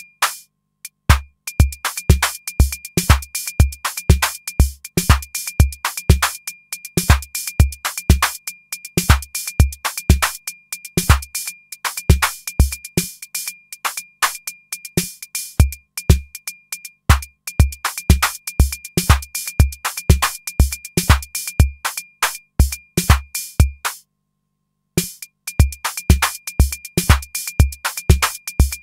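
Electronic drum machine pattern driven by a MIDI step sequencer: a steady deep kick with sharp clicky hits and a high ringing tone. Parts drop in and out as drum tracks are muted and unmuted in real time, and the whole pattern stops for about a second near the end.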